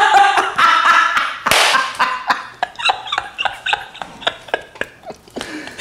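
A drawn-out vocal sound, a loud breathy burst, then an irregular run of sharp claps and slaps with short snatches of voice, thinning out toward the end.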